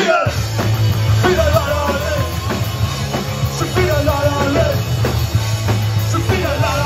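Live punk-rock band: a loud electric guitar and drum kit kicking in together at the start, with a man singing over them.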